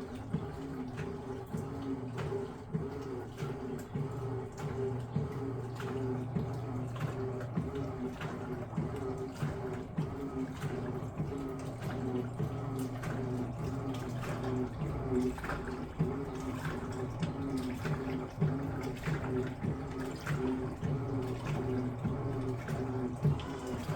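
Electrolux LF10 top-loading washing machine washing at medium water level: a steady motor hum with water sloshing and splashing, the hum pausing briefly twice.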